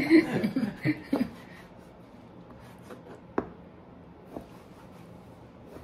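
A voice briefly at the start, then a few light, separate clicks and taps from kitchen handling, the clearest about three and a half and four and a half seconds in.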